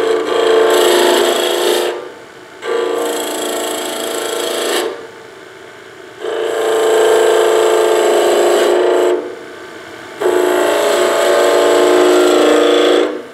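Skew chisel cutting wood spinning on a lathe, in four passes of about two to three seconds each, with the lathe running on more quietly between them.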